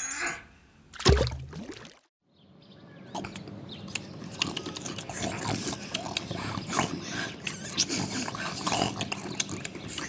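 A short, loud low sound with a falling pitch about a second in, then a moment of silence. From about three seconds in, pigs feeding at a trough: a busy run of small chewing and munching clicks.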